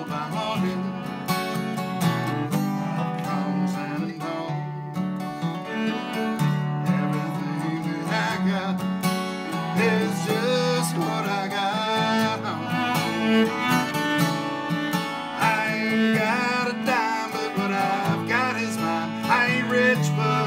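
Acoustic guitar strummed in a steady rhythm, with a bowed cello playing a melody over it.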